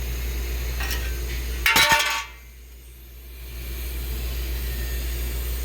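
A sharp metallic clank with brief ringing about two seconds in, over a steady low hum, while metal is being trimmed in a car body.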